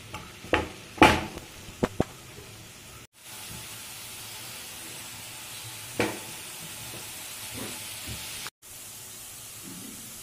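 Cooked pumpkin being mashed in a non-stick pan with the bottom of a glass tumbler, giving a few sharp knocks against the pan in the first two seconds. A white spatula then knocks and scrapes through the mash: one sharp knock about six seconds in, then a few softer ones, over a steady hiss.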